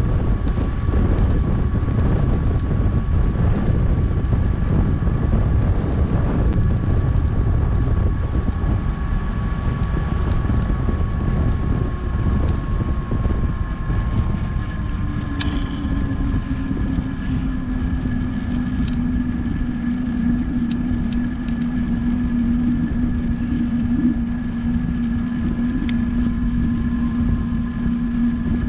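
Wind rushing over a GoPro's microphone on a bicycle coasting fast downhill: a loud, steady rumble. About halfway through, the rumble eases a little and a steady low hum joins in.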